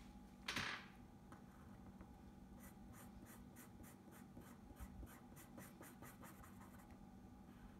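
Pencil shading on a sheet of paper: faint, quick scratchy strokes, about five a second, filling in a small circle. They start about two and a half seconds in and stop near the end. A brief soft rustle comes just after the start.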